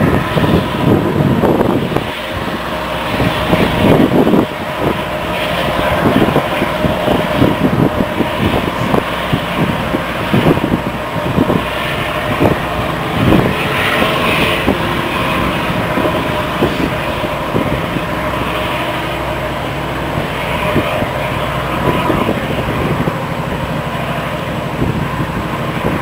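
Wind buffeting the microphone in gusts over a steady mechanical drone with a faint hum from the passing cruise ship.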